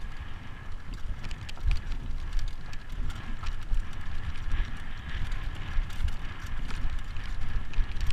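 Mountain bike ridden fast down a dirt and rock trail: the tyres rumble over the rough ground, with frequent sharp knocks and clatter from the bike over bumps.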